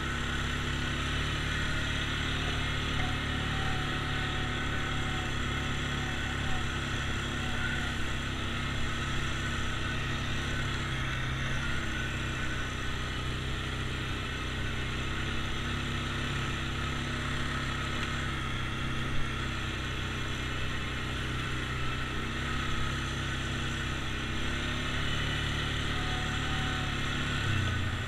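ATV engine running steadily as the machine is ridden along a rough dirt trail, with one sharp knock about two-thirds of the way through and a shift in the engine note near the end.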